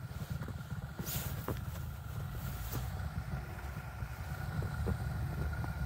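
2020 Jeep Gladiator pickup driving by with a steady low engine rumble, and a short rush of noise about a second in.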